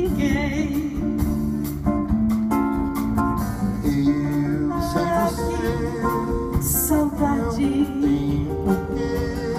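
Live bossa nova band playing: acoustic guitar with bass and drums, and a woman singing held notes with vibrato.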